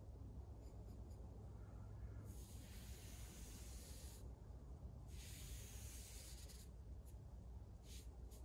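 Brush strokes spreading finish on the wooden chest: two long rubbing strokes of about two seconds each, then shorter, quicker strokes near the end, over a steady low hum.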